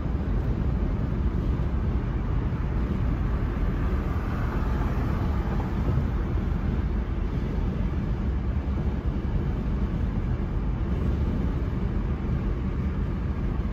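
Steady road and wind noise inside a moving car's cabin: an even low rumble.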